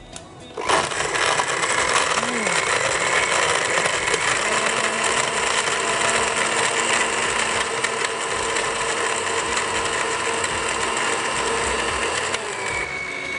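Electric countertop blender switched on about a second in, running steadily as it blends mint lemonade with crushed ice and mint leaves. Its tone shifts near the end.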